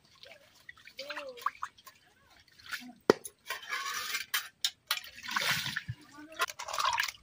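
Water sloshing and splashing in a metal cooking pan as it is swirled and rinsed by hand, in a few separate spells, with a single sharp click about three seconds in.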